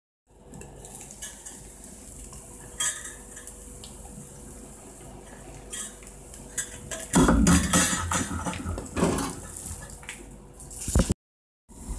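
Metal cookware clattering on a gas stove: a burst of knocks and scrapes about seven seconds in, lasting a couple of seconds, with a few more knocks after. Before it, a low steady hiss of eggs frying in the pan.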